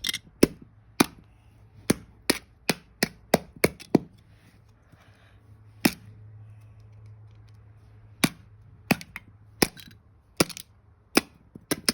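Plastic LEGO bricks clicking and snapping as a model is taken apart by hand: a quick run of sharp clicks, a pause of about two seconds with a faint rustle around the middle, then more single clicks.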